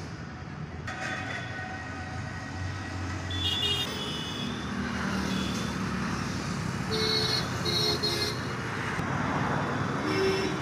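Road traffic going past, with vehicle horns beeping several times in short toots, two of them close together about two-thirds of the way through.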